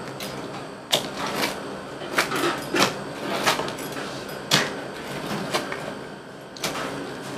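A knife slicing through a baked pizza on a metal pizza pan: a series of sharp scrapes and taps as the blade cuts through the crust and strikes the pan, roughly once a second.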